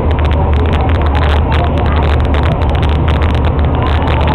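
Ferry boat's engine running steadily, a deep constant hum under a wash of noise.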